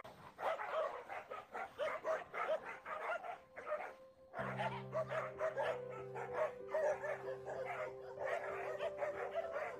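Several dogs fighting: rapid, overlapping barks and yelps, many a second. A steady droning tone comes in a little before halfway.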